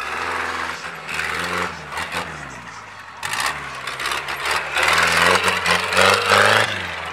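Off-road jeep's engine revving hard under load as it claws up a steep dirt slope, its pitch rising and falling with the throttle, loudest near the end.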